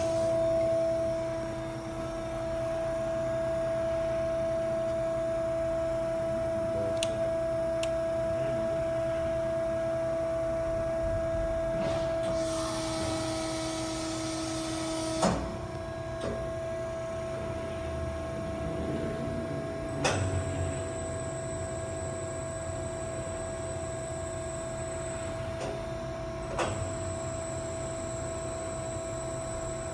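Carell Comac CNC angle roll running under power: a steady machine hum with a held mid-pitched whine. Partway through there is a brief hiss, and several sharp clicks fall through the run.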